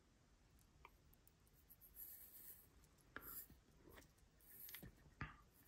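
Near silence with faint handling sounds: a few soft clicks and light rubbing as fingers work the crown of a stainless steel wristwatch.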